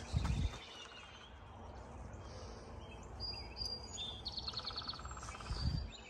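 Small birds chirping, with a quick rapid trill about two-thirds of the way in. Two low thumps, one at the start and one near the end, are the loudest sounds.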